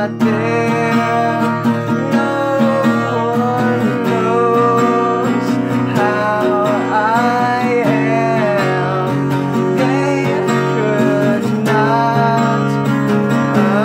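Acoustic guitar strummed in steady chords while a man sings a melody over it.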